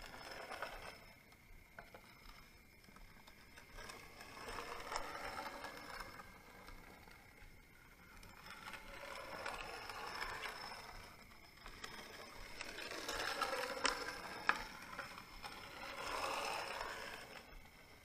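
A shot glass used as a planchette sliding in slow circles over a makeshift Ouija board: a soft scraping and rubbing that swells and fades about every three seconds.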